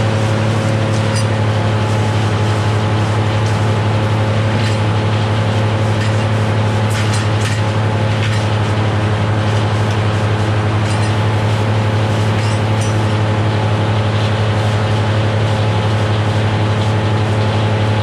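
Naturally aspirated Cummins diesel power unit running at a steady speed, driving the sawmill, with a deep, even hum and a few faint clicks on top.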